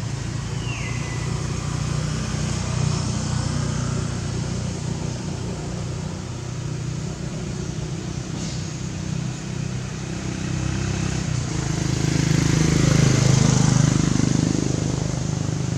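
A motor vehicle's engine running in the background, swelling louder about twelve seconds in as it passes and then easing off. A short falling squeak sounds near the start.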